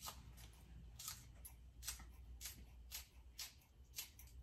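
Faint, sharp clicks repeating irregularly about twice a second: an oven clicking as it preheats.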